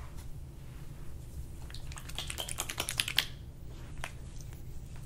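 A quick run of about a dozen light, sharp clicks and taps lasting about a second and a half, the last two loudest, over a low steady hum.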